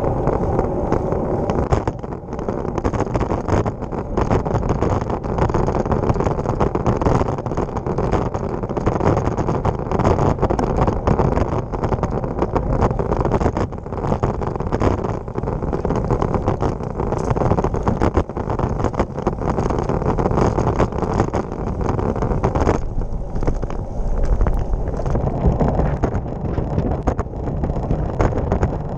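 Wind rushing over the microphone of a handlebar-mounted camera on a moving road bike, with the rumble and irregular jolts of the bike rolling over the tarmac.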